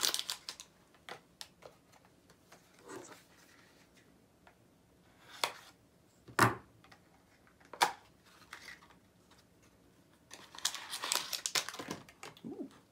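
Small blind-box pin packaging being handled and opened by hand: scattered light clicks, three sharp ticks in the middle, then a flurry of crinkling and tearing near the end.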